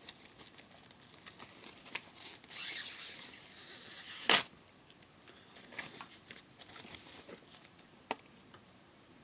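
Hard drive packaging being opened by hand: light clicks and rustles, then a tearing, rustling sound about two and a half seconds in that lasts over a second. It ends in a single sharp snap, the loudest sound, just after four seconds, followed by a few softer handling clicks.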